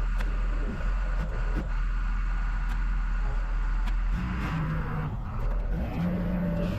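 A heavy vehicle's engine running with a steady low rumble. About four seconds in the sound changes and a low hum starts coming and going.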